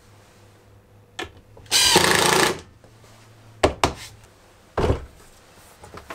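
Cordless drill-driver driving a screw in one short burst of under a second, about two seconds in, followed by a few sharp knocks.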